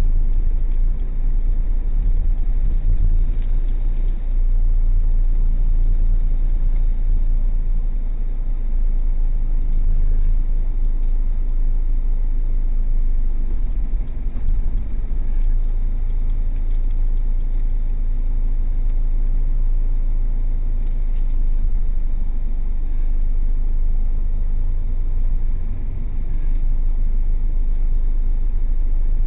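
Steady low rumble of a car's engine and tyres heard from inside the cabin while driving, muffled through the dashcam's microphone.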